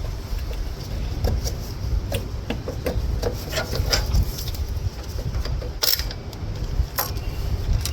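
Scattered clicks and clanks of hand tools and metal engine parts being handled, over a steady low rumble, with a sharper knock about six seconds in.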